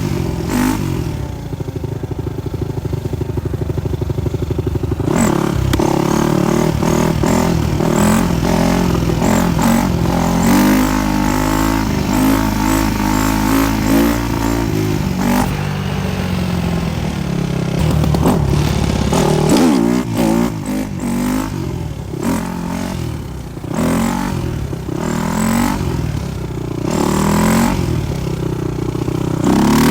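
Supermoto motorcycle engine running and being revved, with the revs rising and falling several times after a steadier first five seconds.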